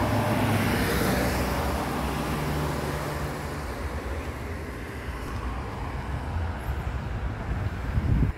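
Street traffic: a car engine passing with a steady hum that fades over the first few seconds, over general road noise. A short low rumble comes just before the end.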